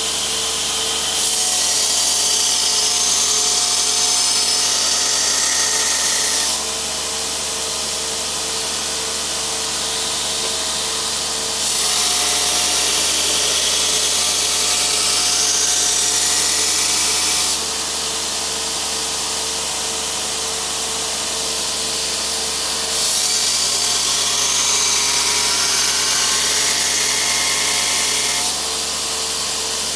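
Belt grinder running with a steady motor tone, as a steel knife blade is pressed to the belt three times. Each pass is a loud, hissing grind lasting about five to six seconds, with the grinder running on its own between passes.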